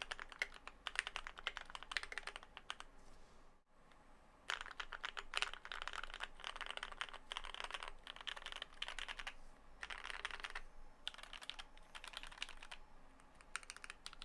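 Idobao ID80 mechanical keyboard with lubed, filmed Gateron Yellow linear switches, dampened with tape, PE foam and polyfil mods, being typed on. Steady typing gives way, after a short pause about four seconds in, to fast bursts of random key mashing separated by brief gaps.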